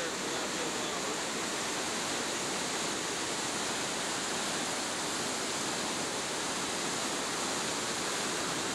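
Mill Creek in flood, about 3,500 cubic feet per second rushing over the diversion dam spillway and down the channel: a steady, unbroken wash of turbulent water.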